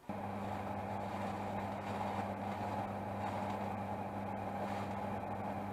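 A steady electrical hum with an even rush of air, like an electric fan motor, that switches on suddenly and keeps running.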